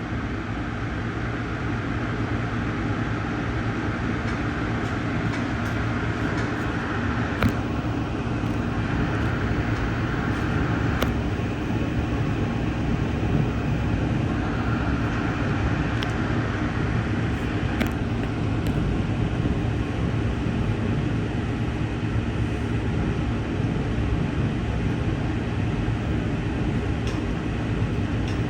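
Inside a moving Amtrak passenger car: steady rumble of the wheels on the rails, with a few sharp clicks and knocks now and then.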